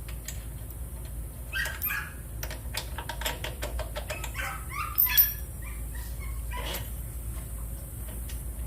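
Several short, high-pitched animal cries, with a run of sharp metallic clicks and taps in the middle and one louder knock about five seconds in.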